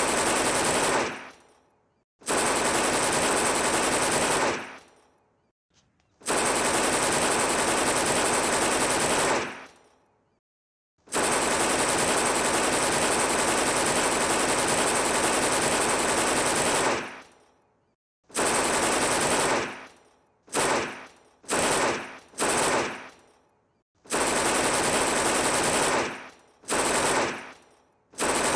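Submachine gun firing full-auto in about eleven bursts separated by short silences. Most bursts run one to three seconds, one runs about six seconds, and the later ones are short and come in quick succession.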